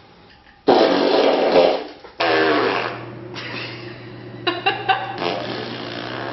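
Remote-controlled gag fart machine playing two long, loud farting sounds, the second falling in pitch, followed by a steady low hum with a few short sharp sounds.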